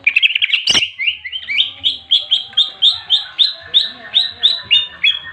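Cucak ijo (green leafbird) giving its fighting call, the 'ngentrok' chatter. It opens with a quick jumbled burst of notes and a single sharp knock just under a second in, then settles into a steady run of short, sharp notes about four a second.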